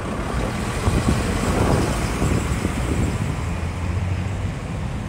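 Engine drone of a low-flying firefighting plane, a steady low hum under a rushing noise that swells about a second in.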